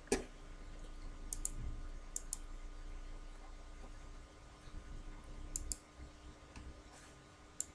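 Faint, sharp clicks coming in close pairs, three pairs and then a single click near the end, over a low steady hum.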